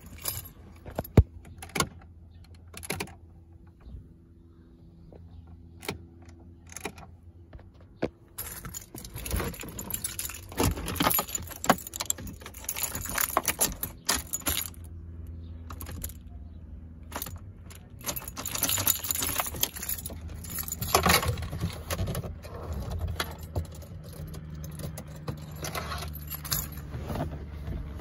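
Car keys jangling and clicking at the ignition switch, the key being turned and worked in the lock of a 2001 Ford Expedition that won't power on, over a steady low hum. A few scattered clicks come first, then busier jangling from about a third of the way in.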